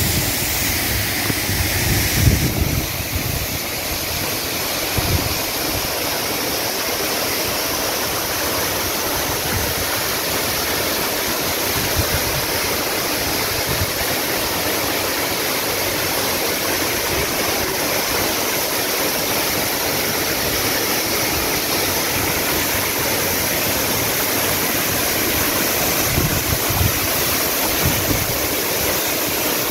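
Waterfall in full monsoon flow: water rushing in a steady, dense wash of noise, with a brief low bump near the start.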